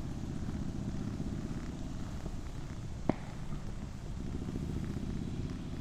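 Steady low running rumble of a vehicle, with one sharp click about three seconds in.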